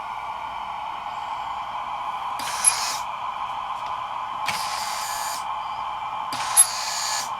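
Gauge 1 model railway turntable running, its drive giving a steady whine, with hissing bursts about every two seconds and two sharp clicks.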